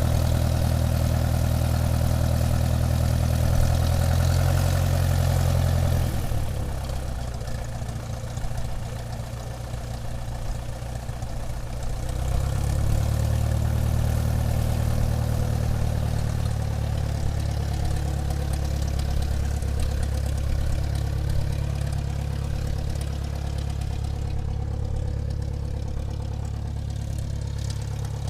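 Airplane engine running at taxi power, a steady low drone. The power eases off about six seconds in and builds back up at around twelve seconds, then holds steady.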